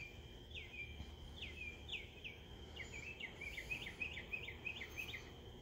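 A bird calling: a string of short down-slurred chirps, spaced out at first and then coming in a quick run from about halfway through, over a steady high drone of insects.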